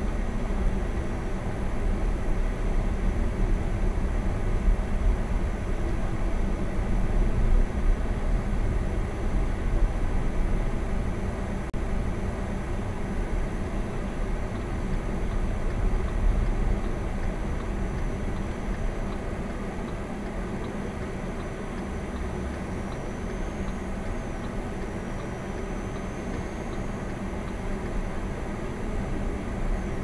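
Steady low rumble of a car driving slowly, heard from inside the cabin: engine running and tyres rolling on a packed-snow road. It eases off a little past the middle.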